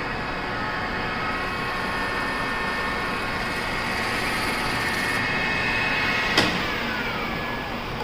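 A shop machine's electric motor runs steadily at speed with a high whine. About six seconds in there is a sharp click, and the whine falls in pitch as the motor winds down.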